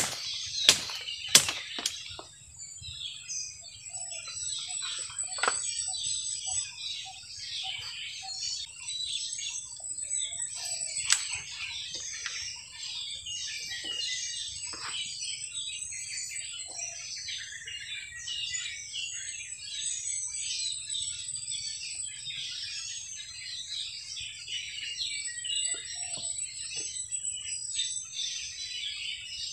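Dense chorus of many birds chirping and twittering in tropical forest, over a steady thin high tone. There are short runs of lower calls, and a few loud sharp knocks in the first second and a half.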